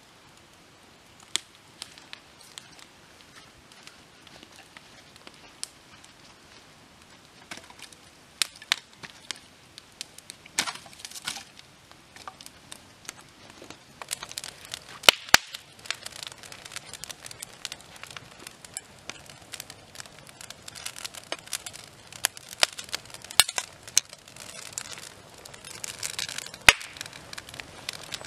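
Wood campfire crackling, with sharp scattered pops from the burning sticks; sparse at first, then busier over a soft hiss of flames from about halfway on.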